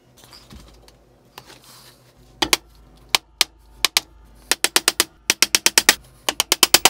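Claw hammer tapping small nails into glued plywood: a few sharp taps about two and a half seconds in, then quick strings of strikes through the second half.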